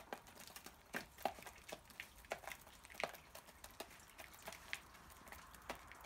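Hens pecking spaghetti from a dish: faint, irregular taps and clicks of beaks striking the food and the dish, a few sharper pecks among them.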